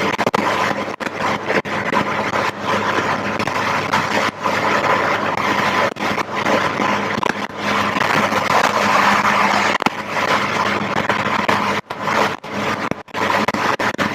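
Rover Metro's 1.8 VVC K-series engine and tyre noise on a wet road heard from inside the moving car, as a steady dense noise. The sound cuts out briefly several times, as if the microphone were dropping out.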